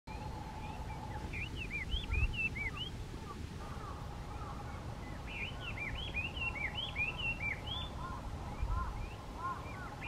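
Chinese hwamei singing: quick runs of short, clear whistled notes, in two bursts with a pause between them and lower notes near the end. A faint steady hum and a low rumble lie underneath.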